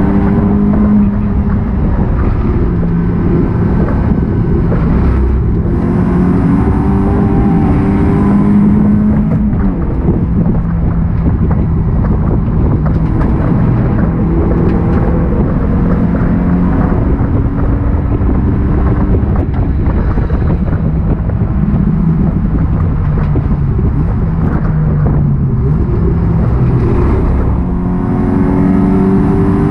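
Honda Accord racing car's engine heard from inside its stripped cabin, accelerating hard from about 20 to 65 mph, its pitch climbing again and again as it revs up through the gears, over steady road and wind noise.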